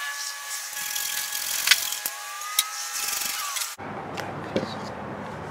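Sped-up hand-tool scraping on a wooden boat brace, with a few sharp knocks. It cuts off abruptly about four seconds in, leaving quieter room noise and a couple of light knocks.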